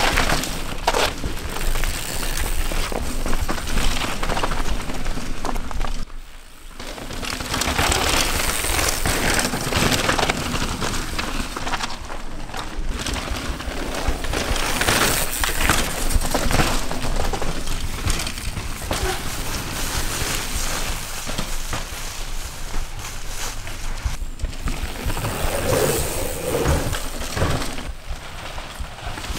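Mountain bikes riding fast down a dirt forest trail: a steady rushing noise of tyres and air, with crunches and rattles as the bikes go over bumps, dipping briefly quieter about six seconds in.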